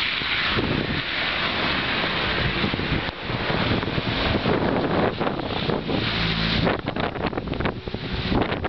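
Strong blizzard wind gusting and blowing snow, with the wind buffeting the microphone. From about seven seconds in, the rushing turns choppier, with rapid irregular buffets against the microphone.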